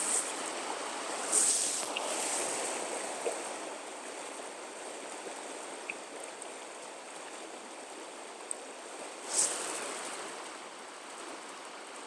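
Trout stream water running steadily, with a couple of brief louder bursts of noise, one about a second and a half in and one near the end.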